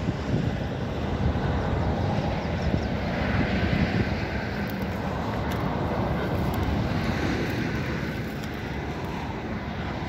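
Steady noise of motor traffic on a highway.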